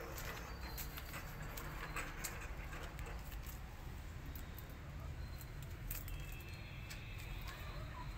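Quiet outdoor background: a low steady rumble with scattered light taps and ticks.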